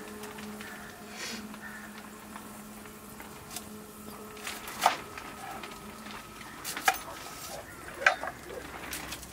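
Kitchen knife slicing a red onion on a wooden cutting board: a handful of sharp knocks of the blade on the board, spaced one to two seconds apart, the loudest about five, seven and eight seconds in.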